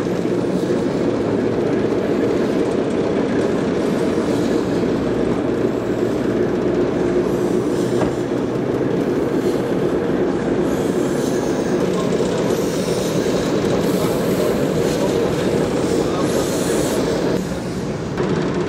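A diesel locomotive idling with a steady rumble as a small vertical-boilered steam tram engine, Cockerill No 8, moves slowly past on the yard track. The sound drops a little near the end.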